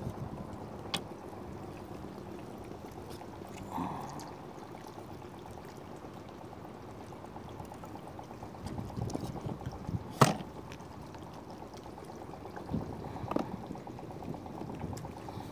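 Water lapping and trickling around a small styrofoam kayak, with a few sharp knocks, the loudest about ten seconds in.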